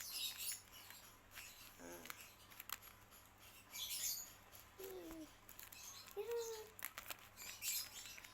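Paper and sticky tape of a homemade paper squishy crinkling and rustling in short bursts as it is handled, with a few brief wordless vocal sounds in between.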